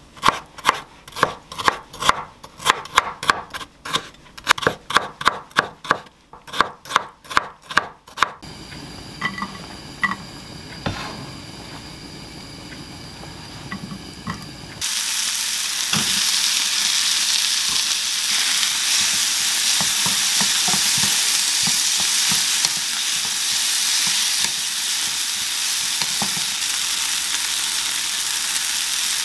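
Chef's knife dicing tomato on a wooden cutting board: a quick, even run of chops for about eight seconds. About fifteen seconds in, diced onion and tomato go into a hot, olive-oiled frying pan and sizzle steadily as they fry.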